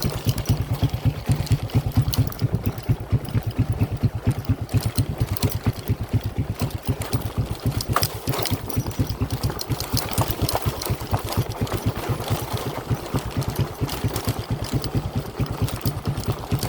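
An engine running steadily with an even low pulsing beat, about five or six beats a second, with scattered clicks over it.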